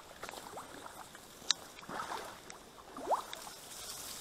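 Dry reed stems rustling and brushing as someone pushes through a reed bed, with a sharp snap about a second and a half in and a short rising squeak about three seconds in.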